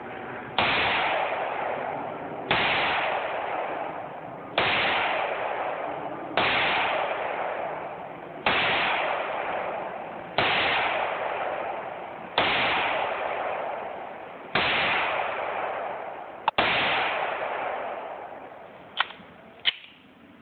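Glock 19 9mm pistol firing nine slow, evenly spaced shots about two seconds apart, each followed by a long fading echo. Two shorter, quieter cracks come near the end.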